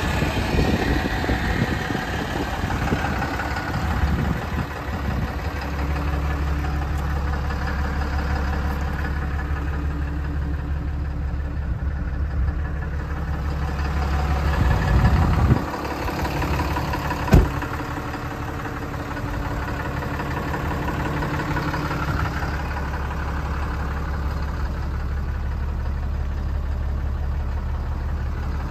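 A 2011 Ram 5500's 6.7-litre Cummins turbo-diesel idling steadily, with one sharp click about seventeen seconds in.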